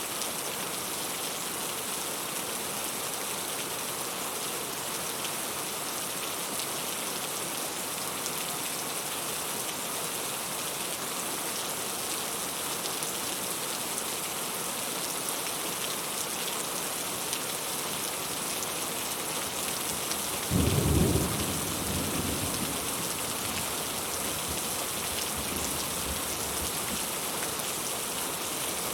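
Steady rain falling, a constant hiss. About two-thirds of the way through a clap of thunder breaks in, deep and loud, then rumbles off over a few seconds.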